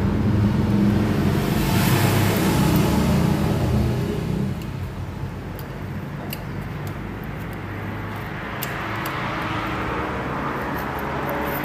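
A motor vehicle engine running with a low rumble, fading after about four seconds, with noise building again near the end. A few light metallic clicks come from a piston ring and feeler gauge being worked in an engine cylinder bore.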